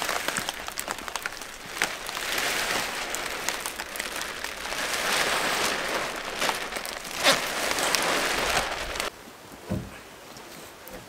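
Rain spattering, with plastic film rustling and crackling. The noise stops abruptly about nine seconds in, and a single dull thump follows.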